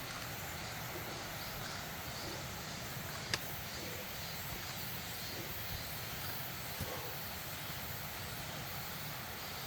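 Steady rush of a mountain stream, with one sharp click about three seconds in.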